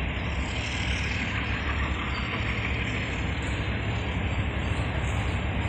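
ALCO RSD-16 diesel-electric locomotive approaching with a loaded freight train, its V16 diesel engine a steady low rumble.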